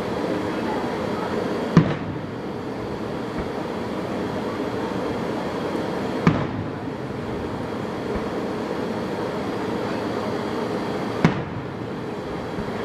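Three fireworks bursts, each a single sharp boom, about five seconds apart, over a steady background rumble.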